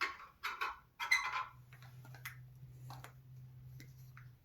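Small clicks and knocks of telescope eyepieces being handled and set into the tripod's accessory tray. A quick cluster of clicks comes about a second in, then a few fainter ticks.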